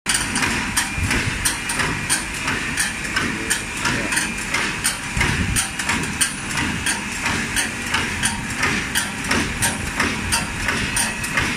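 CNC steel wire straightening and cutting machine running: a steady mechanical hum with a sharp clack repeating evenly about every two-thirds of a second, the cutter shearing off lengths of wire.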